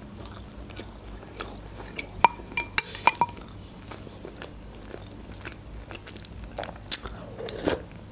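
Close-up chewing of flaky puff pastry, with wet mouth clicks and soft crunching. About two to three seconds in come a few sharper clicks with a short ring, as a metal spoon goes into the ceramic bowl.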